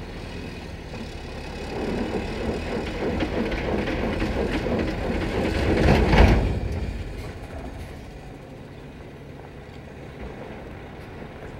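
Semi tanker truck's diesel engine labouring on a gravel hill road where the truck has got stuck, with rumble and grit from the wheels. The noise swells to a peak about six seconds in, then dies back to a low hum.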